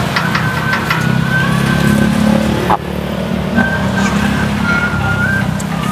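Motorcycle engines running in street traffic, a steady low drone.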